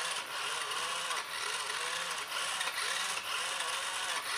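Toy RC off-road car with a smoke-spraying exhaust, switched on and held in the hand, giving a steady electric whirr with a faint wavering tone that rises and falls about twice a second.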